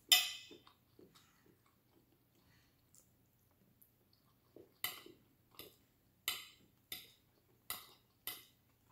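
Close-up eating sounds from a person eating pasta with a metal fork off a glass plate. There is one sharp clink right at the start, then after a quiet stretch a regular run of sharp clicks about every two-thirds of a second.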